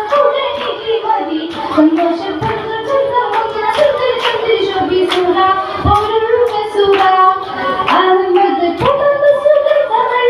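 A young woman singing a Mappila song (mappilappattu) solo into a microphone, a melodic line with long held and gliding notes. Sharp hand claps keep time under the voice, about two a second.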